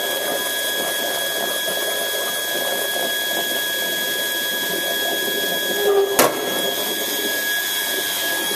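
Milk-tank wash system running: a steady rush of hot water through the chemical jug and pipework, with a constant high tone from the machinery, as the cleaning chemical is washed in. A single sharp click about six seconds in.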